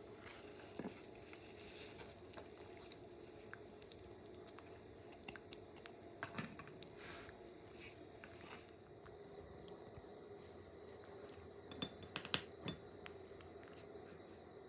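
Indian star tortoises biting and chewing leafy greens: faint, scattered crunches and clicks, with a few sharper clicks about twelve seconds in, over a steady low hum.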